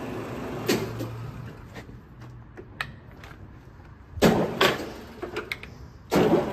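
Metal clunks from the controls of a Kearney & Trecker 420 TF-17 universal milling machine being worked by hand. A sharp clunk comes early, after which the machine's steady running hum dies away. A pair of loud clunks follows about four seconds in, then a few light clicks, and one more loud clunk near the end as the running hum comes back.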